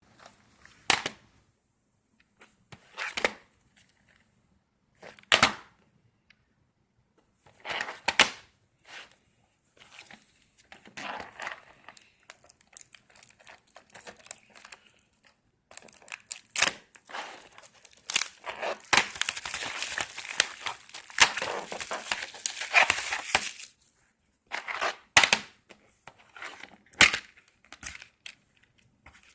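Plastic packaging on a DVD set being unwrapped and handled: crinkling and tearing with scattered sharp clicks and snaps, and a long stretch of dense crinkling past the middle.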